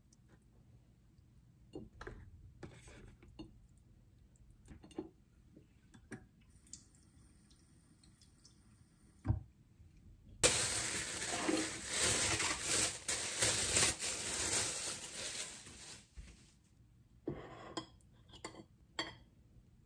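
Kitchen sink tap running for about five and a half seconds over a ceramic dish of tofu, lightly wetting it. Before it come scattered light knocks of tofu and ceramic dishes being handled, and near the end a metal spoon clinks a few times against a ceramic plate.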